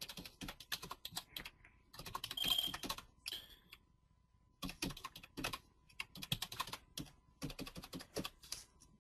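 Computer keyboard typing: quick runs of keystrokes as a command is typed, with a short pause about four seconds in.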